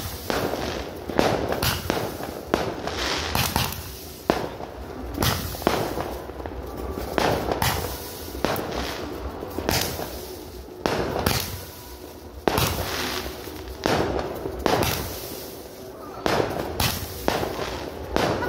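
Ground-launched fireworks battery firing shots into the air: sharp bangs, irregular at about one or two a second, over a continuous hiss of sparks.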